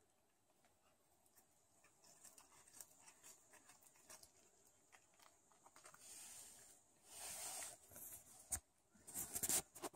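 Domestic cat biting and tearing at a slice of ham, then chewing it: faint small clicks and smacks, with a few louder rustling bursts in the second half.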